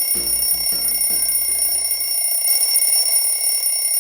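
Outro music: a short run of low stepping notes that ends about two seconds in, over a steady high-pitched ringing with a buzzy edge that carries on after the notes stop.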